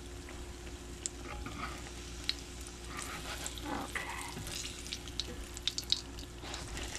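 Hot vegetable oil sizzling and crackling around fried pies in a cast-iron skillet. About halfway through, a spatula slides under one pie and lifts it to turn it over, and the crackling grows busier.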